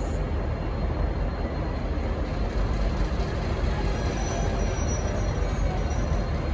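V/Line N-class diesel-electric locomotive, with its EMD 12-645 two-stroke diesel, running steadily as the train pulls out: a deep, even rumble. Faint high squeals, likely wheel or flange squeal, come in about four seconds in.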